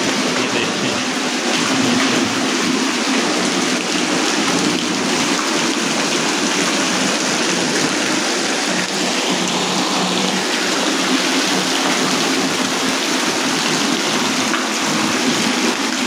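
Vertical fountain jets spraying water up and splashing it back down into a shallow pool: a steady hiss and splash of falling water.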